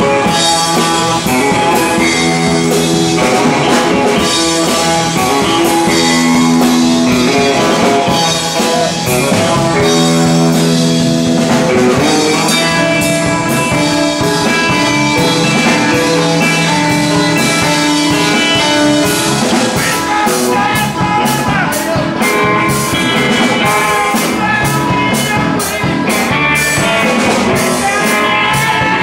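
Live rock band playing: electric guitar over a drum kit beat, with a man singing near the end.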